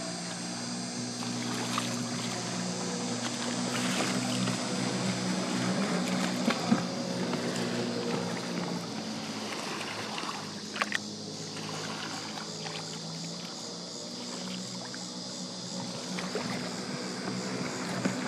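Sea-Doo Speedster jet boat running at speed, its engine drone swelling and fading as it passes and growing louder again near the end. A few sharp clicks sit on top.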